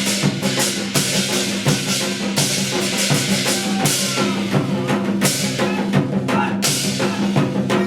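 Percussion-driven ensemble music: fast, dense drumming with recurring bright crashes over a steady low sustained tone.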